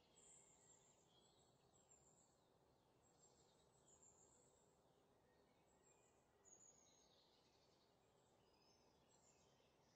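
Near silence: a low hiss with a few very faint, short high chirps.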